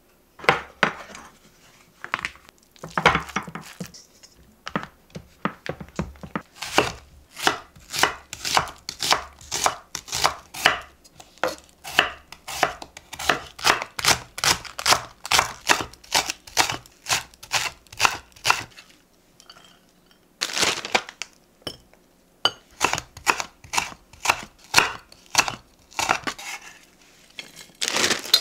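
Kitchen knife slicing green onion on a wooden cutting board: steady, evenly paced chops about three a second, a short break, then a second shorter run of chops. Scattered knocks and handling sounds come first.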